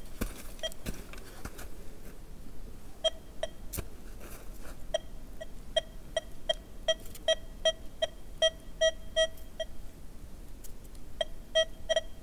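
XP Deus 2 metal detector sounding short repeated beeps of one pitch, two to three a second, as its coil is swept back and forth over a buried test target: the signal that it is detecting the target at depth. The beeps start about three seconds in and pause briefly near the end before resuming.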